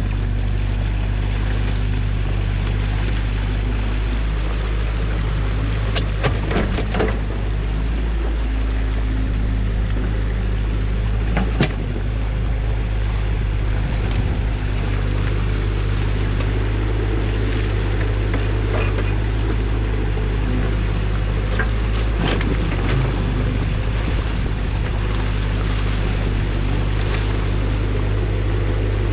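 Compact excavator's diesel engine running steadily while water rushes through the breach in the beaver dam. A few sharp knocks come from the bucket working the dam.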